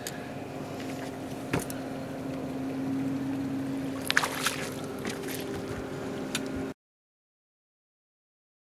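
A boat motor runs with a steady hum while a hooked fish thrashes and splashes at the surface beside the boat about four seconds in. The sound cuts off to dead silence about seven seconds in.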